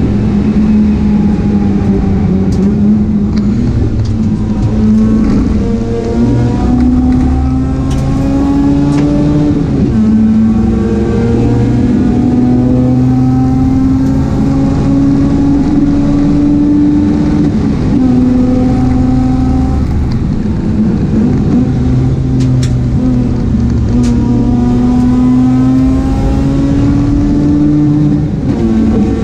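Mazda RX-8 race car's engine running hard under load. Its pitch climbs slowly and drops back sharply several times as it changes up through the gears.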